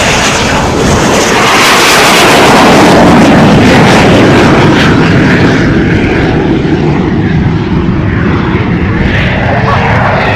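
Aero L-29 Delfín jet trainer flying past, its single turbojet making a loud, wide rushing noise that swells to a peak two to four seconds in and then slowly fades.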